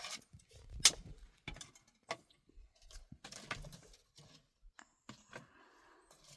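Scattered sharp clicks and knocks, the loudest about a second in.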